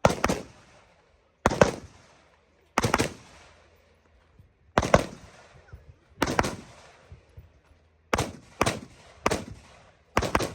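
Rifle shots fired at irregular intervals, about nine in ten seconds, some close together near the end. Each sharp report trails off in a rolling echo.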